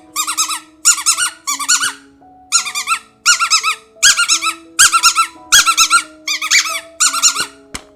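Rapid series of high-pitched, warbling squeaks, about a dozen short bursts, over background music with steady held notes.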